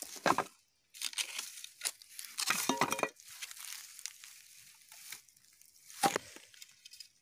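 Dry grass and brittle dead stems crunching and rustling close to the microphone in irregular bursts, with a sharp crack about six seconds in.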